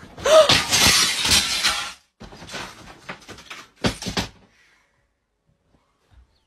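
A loud crash of something breaking, shattering for about two seconds, with a brief cry near the start. Scattered clattering knocks follow, then it goes quiet after about four and a half seconds.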